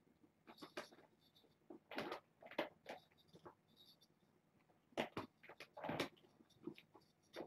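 Kittens playing among their toys: faint, scattered light taps and rustles, a few louder ones about two and five to six seconds in.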